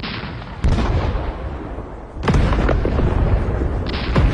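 Battle explosions: a sudden blast under a second in and a louder one about two seconds in, each followed by a long low rumble with scattered sharp cracks.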